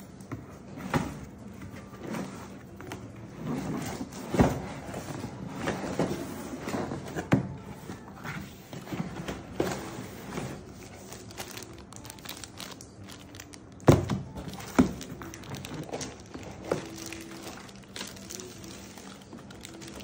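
Cardboard box and moulded pulp packaging being handled: irregular knocks and thuds with rustling of plastic wrap and paper, the two loudest thumps about two-thirds of the way through.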